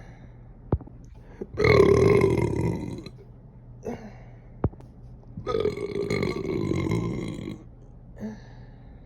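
A woman belching twice: two long, loud burps, the first lasting about a second and a half and the second about two seconds, each coming shortly after a sharp click.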